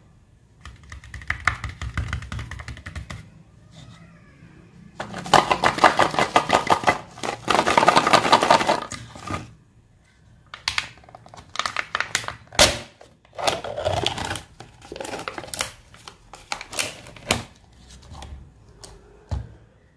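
Sealed foil lid being worked and peeled off a Mini Oreo plastic snack cup: crinkling and tearing of the foil with handling clicks on the plastic cup. The crinkling is densest in the middle, then breaks into scattered crackles and clicks.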